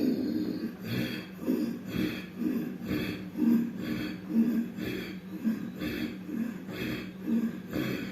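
A person doing a rapid yogic Ujjayi breathing exercise: short, forceful breaths through the nose and throat in a steady rhythm of about two a second.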